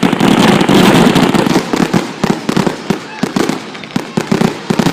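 Fireworks going off in a rapid, continuous barrage of sharp pops and crackles, loudest in the first second or so.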